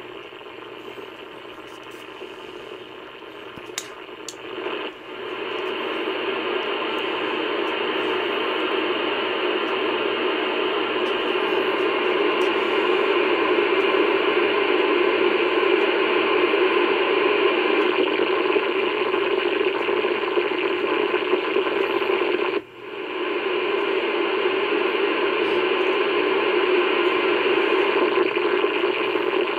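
Steady hiss of static from a Kenwood TS-2000 receiver in upper sideband on the 80-metre band. It is electrical interference from a running dishwasher, strong enough to read about S7 on the S-meter. The noise grows louder about five seconds in and cuts out for a moment about two-thirds of the way through before coming straight back.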